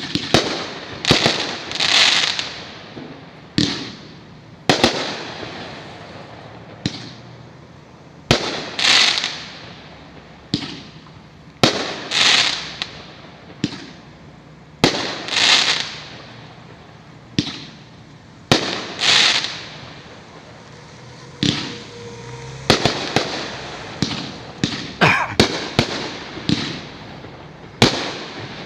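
Aerial fireworks firing in a sequence of about twenty sharp bangs, irregularly spaced a second or so apart. Many bangs are followed by a short hissing, crackling spray as the stars break.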